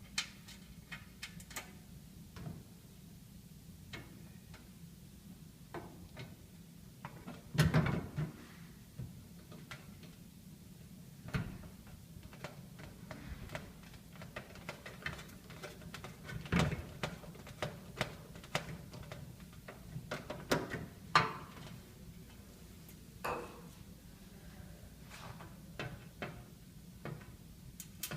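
Scattered clicks, taps and knocks of screws and a screwdriver being worked into the lid hinge of a stainless steel step trash can, with a few louder knocks of the lid being handled.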